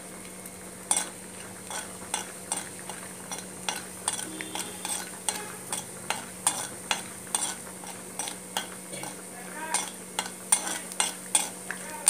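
A slotted metal spatula stirring peanuts frying in oil in a metal kadai: irregular scrapes and clicks of metal on metal, about two a second, over a steady sizzle.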